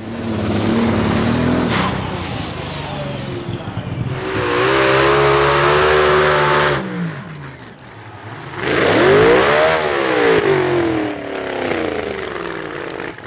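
Modified tractor-pulling engines, supercharged V8s, running at full revs in a string of short clips. The engine sound holds steady through the middle, then an engine revs up and drops away again a little after that.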